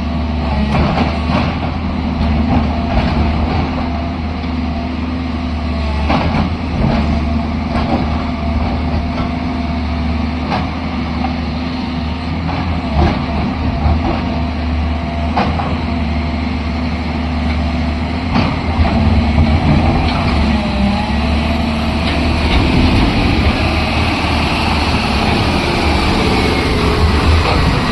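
JCB excavator's diesel engine running steadily, with scattered knocks and clanks and a wavering higher whine in the second half.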